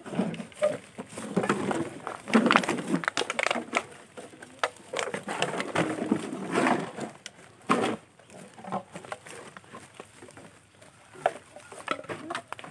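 Empty plastic drink bottles and plastic litter crackling, clicking and knocking together as they are picked up and handled, in irregular bursts.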